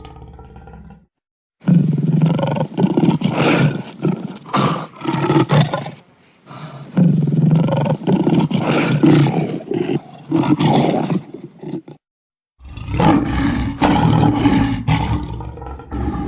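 Three long, loud big-cat roars, presented as the voice of a Eurasian cave lion, each starting and cutting off abruptly with short dead-silent gaps between them.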